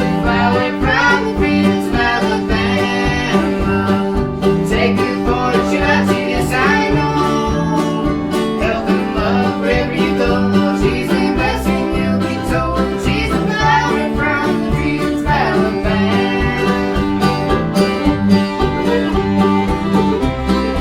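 A bluegrass string band playing live, an instrumental passage with banjo picking prominent over guitar.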